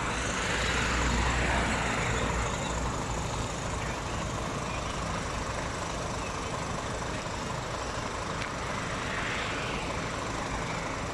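Road traffic going by: one vehicle passes in the first couple of seconds, swelling and fading, and another passes near the end, over a steady low rumble.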